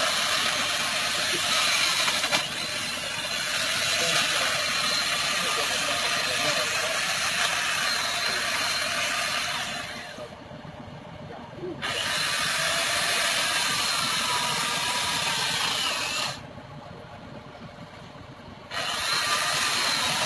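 Chainsaw running and cutting through the fallen tree's wood, a steady hissing whine that drops away sharply twice for about two seconds each time.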